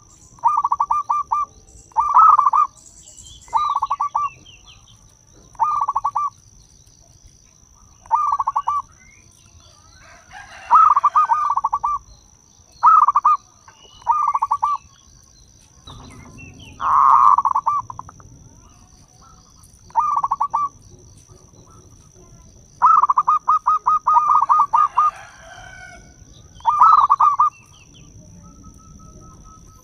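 Zebra dove (perkutut) cooing: repeated bursts of quick staccato notes, a short run roughly every two seconds, with one longer run about three-quarters of the way through.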